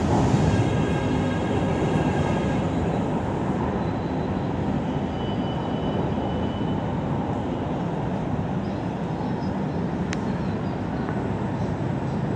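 MRT Line 3 train running past the platform and pulling away: a steady rumble of wheels on rails, loudest at first and easing over the first few seconds, with a faint high whine at the start. A single sharp click about ten seconds in.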